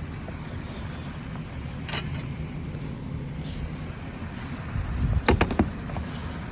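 An engine running steadily at a low hum, with a brief click about two seconds in and a quick run of sharp knocks a little after five seconds.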